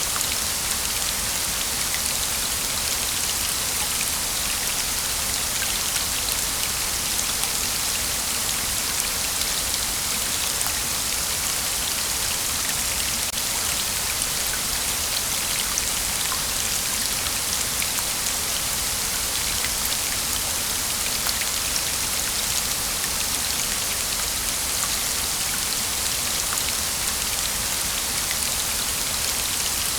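Waterfall: a steady rush of falling water, with a fine patter of splashing droplets.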